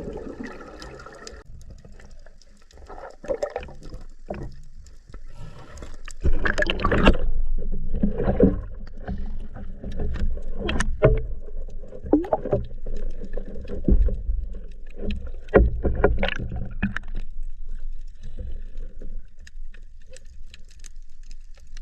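Water sloshing and gurgling around a spearfisher's action camera, uneven surges with scattered sharp knocks.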